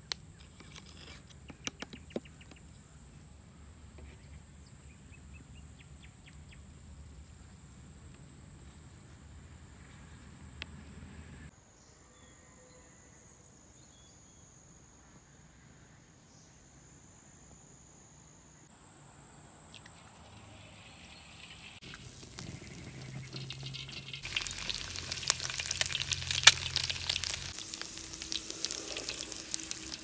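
A few light taps as slices are dropped into an empty pan, over a steady high insect drone. From about two-thirds of the way through, fat sizzles and crackles in a hot steel wok as a wooden spatula spreads it, building to a loud, busy sizzle.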